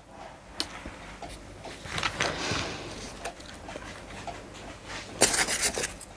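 Faint rustling and light handling noises, then a brief louder rustle about five seconds in as hands dig into a box of packing peanuts.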